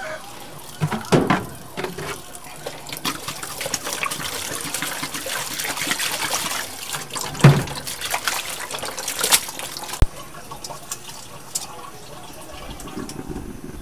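Tap water running and splashing into a plastic basin of sea grapes being rinsed by hand, with extra water poured in from a plastic jug; the running water stops about ten seconds in.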